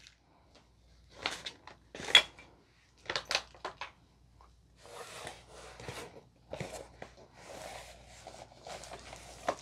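Packaging being handled: a few light clicks and taps, then about five seconds in, repeated soft rustling and sliding as the long cardboard kit box is picked up and worked open.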